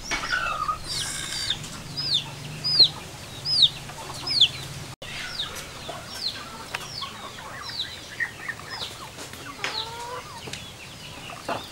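A bird peeping over and over, short high chirps a little over one a second, loudest a few seconds in.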